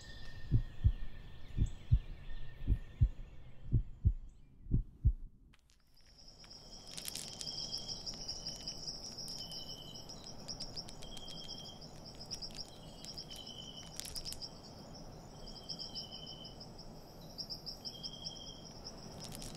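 Low, heavy thumps about two a second fade out over the first five seconds. Then outdoor forest ambience takes over: a steady high insect trill, with a bird repeating short chirps about once a second.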